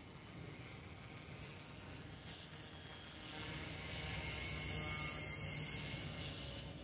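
OMP Hobby M1 micro electric RC helicopter in flight in regular (not idle-up) mode: a high, buzzing whine of its motors and rotor blades. It grows louder about four to six seconds in as it flies close, then fades.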